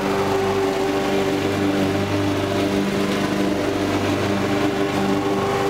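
Walk-behind petrol lawn mower engine running steadily at a constant speed, an even hum that does not change.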